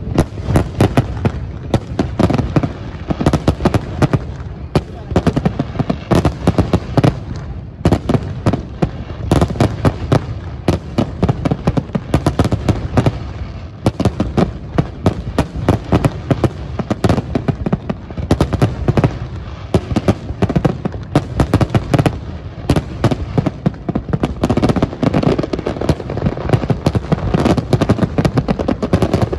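Fireworks display: a dense, continuous barrage of bangs and crackles, many per second.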